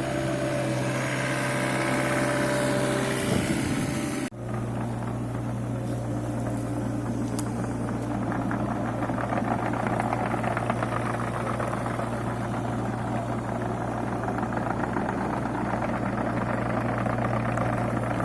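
Bobcat E85 excavator's diesel engine running steadily, with higher whining tones over it for the first four seconds. About four seconds in the sound breaks off abruptly and resumes as steady running with a fine rattle.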